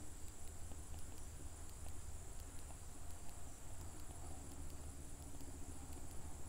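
Faint background noise with no speech: a steady high-pitched tone over a low hum.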